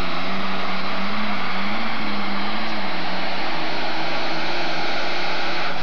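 John Deere super stock pulling tractor's engine at full power hauling the weight sled, with a dense, loud drone whose pitch wavers slightly up and down as it pulls.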